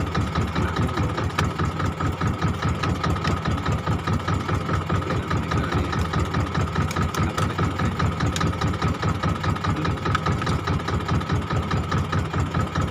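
Fishing boat's inboard engine running steadily, with an even, rapid pulsing beat and a steady hum. A few faint clicks of spoons on dishes sound over it.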